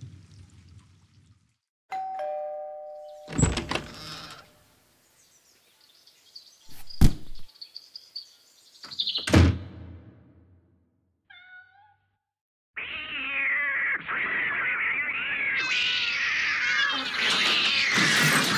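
Cartoon sound effects: a two-note ding-dong doorbell chime, then three heavy thumps spread over several seconds and a few tiny squeaks. About two-thirds of the way through, a dense layer of many wavering tones sets in and grows louder near the end.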